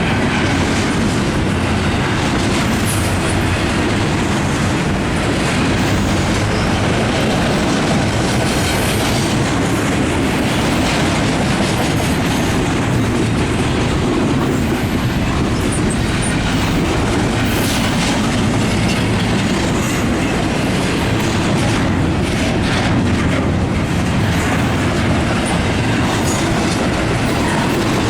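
Norfolk Southern freight train's cars rolling past at steady speed, wheels clacking over the rail joints, with a few brief high squeaks from the wheels.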